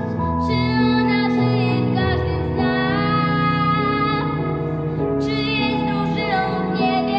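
A young girl singing solo over an instrumental backing track, holding long notes above a bass line that changes note every second or so.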